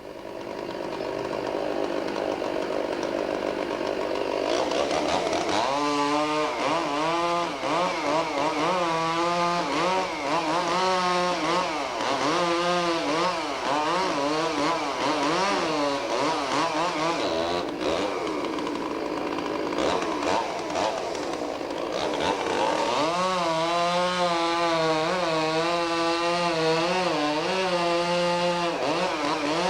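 Two-stroke chainsaw cutting into a tree. It builds up over the first couple of seconds, then its engine pitch rises and falls about once a second under load, steadies for a few seconds past the middle, and wavers again toward the end.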